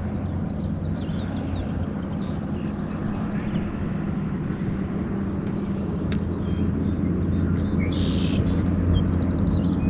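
Steady low engine drone that grows somewhat louder in the second half, with small birds chirping in quick short notes over it.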